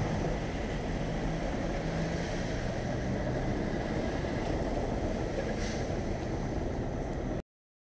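Street traffic: cars driving past on a cobbled street with a steady low rumble and engine hum. The sound cuts off suddenly near the end.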